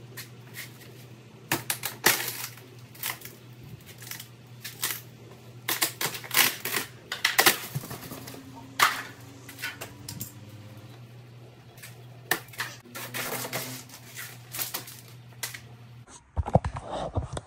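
Fiberglassed and bondoed widebody fender flare being pried and torn off a Dodge Charger's rear quarter panel by hand: irregular sharp cracks, snaps and knocks as the fiberglass and body filler break away, in loose clusters. A steady low hum runs beneath and stops near the end.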